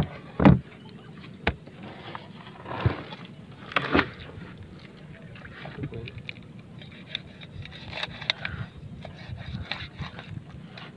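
Knocks, thumps and wet scraping as a large blue marlin is cut up and its flesh pulled apart on wooden boards, the heaviest thump about half a second in, then lighter clicks and scrapes. A steady low hum runs underneath.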